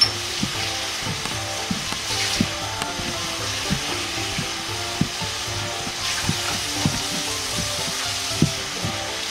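Chinese cleaver knocking on a cutting board as it cuts pork belly into thin strips, one stroke about every two-thirds of a second, over a steady hiss.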